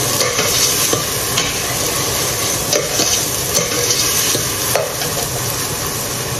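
Onions frying and sizzling in a stainless steel pot as they brown, stirred with a spoon that knocks and scrapes against the pot a few times.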